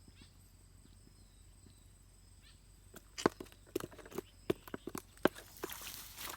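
Quiet outdoor background with faint steady high thin tones, then from about halfway a string of irregular sharp knocks and clicks, with a brief rustle near the end.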